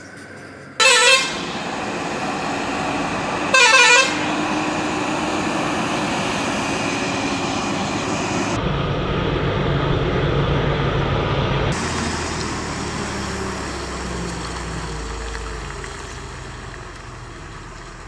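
Truck horn sounding two short blasts about three seconds apart, followed by a heavy truck's engine running as it labours through the bend, growing louder midway and then fading.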